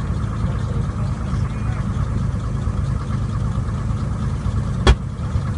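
Steady low rumble, with one sharp bang near the end.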